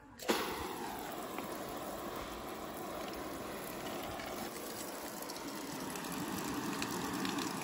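Spray of water from a hose playing onto an oiled canvas tarp, a steady hiss and patter that starts about a third of a second in. This is a water test of a linseed-oil oilskin tarp.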